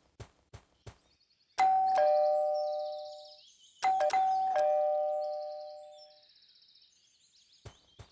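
Two-tone ding-dong doorbell chime rung twice, the second time with a few quick repeated presses. Each chime's two notes ring on and fade over about two seconds, over faint high chirping.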